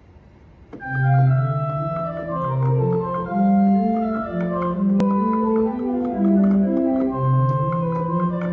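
Organ playing a slow hymn arrangement, sustained chords over a stepping bass line, starting about a second in.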